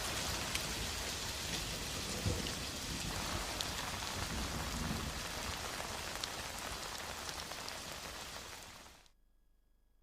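Heavy rain falling steadily on a surface, with scattered louder drops, fading out and cutting off near the end.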